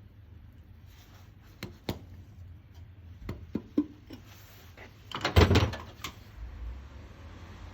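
A series of knocks and clatters, a few single knocks first, then a louder burst of clattering about five and a half seconds in, over a low steady hum.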